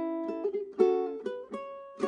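Solo ukulele played fingerstyle: a melody over chords, with notes and chords plucked a few times a second, each ringing and fading before the next.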